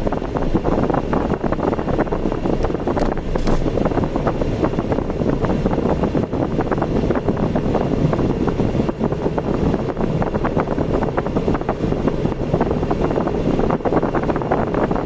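Steady road and wind noise of a car driving, a dense rumbling hiss with no distinct events.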